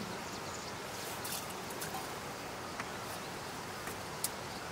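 Steady low background hiss with three faint, short clicks spread through it.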